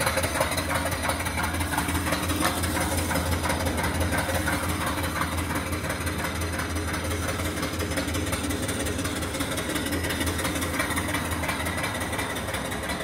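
Small steam engine (2¾-inch bore, 4-inch stroke) running steadily, its exhaust puffing up the boiler's smokestack in a quick, even beat.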